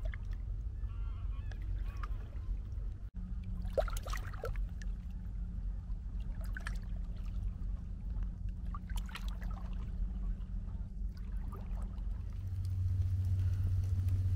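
Geese honking in a few short bursts of calls, over a steady low hum that gets louder near the end.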